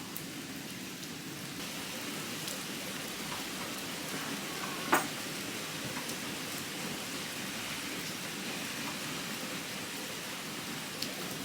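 Steady rain falling, with scattered drips and one sharp tap about halfway through.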